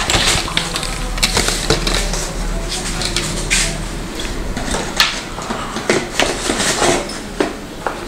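Hands handling copper refrigerant pipes and fitting a rubber hose onto a pipe end in an air conditioner's outdoor unit: scattered clicks, taps and rustles, with a steady low hum underneath.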